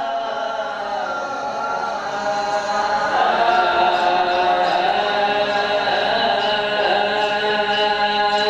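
Voices singing long held notes in a chant-like wedding song, growing louder about three seconds in.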